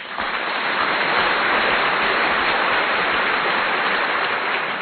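A loud, even rushing noise with no tone or beat, starting suddenly and fading out near the end.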